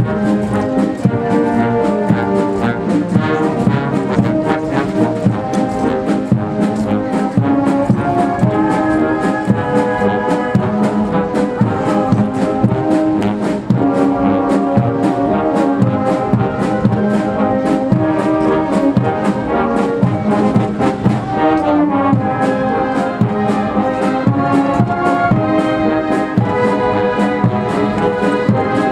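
Military brass band playing a march, with a steady drum beat under the brass.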